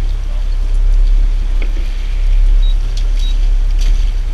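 Fishing boat's outboard motor running steadily, a low drone.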